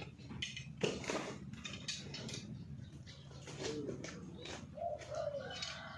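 A dove cooing, two low calls in the second half, over scattered sharp knocks and clicks.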